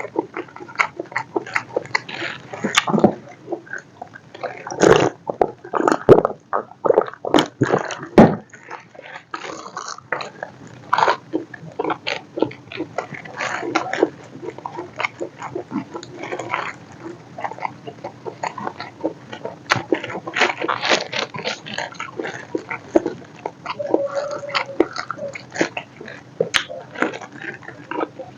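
Close-miked eating sounds: a person biting and chewing food, with wet mouth clicks and smacks coming in an irregular stream.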